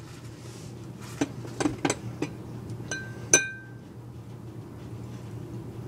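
A spoon clinking against a dish about six times. The loudest strike, about three and a half seconds in, rings on briefly.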